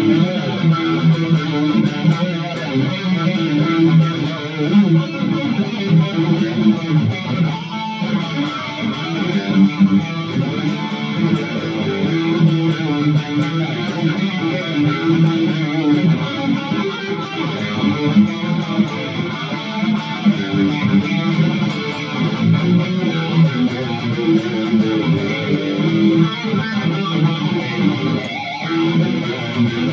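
ESP LTD SN-1000 electric guitar playing a rhythm part, continuous, with two brief breaks.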